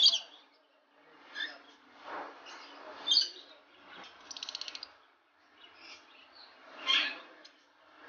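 Caged cockatiels and lovebirds calling in short, separate chirps and squawks, with a fast trill about four and a half seconds in.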